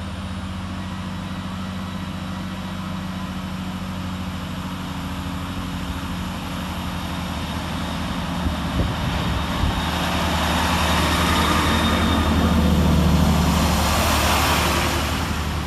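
Chiltern Railways Class 165 diesel multiple unit approaching and running past along the platform. Its diesel engine hum and wheel-on-rail noise grow steadily louder. A few knocks come about nine seconds in, and the sound is loudest about thirteen seconds in as the carriages pass close by.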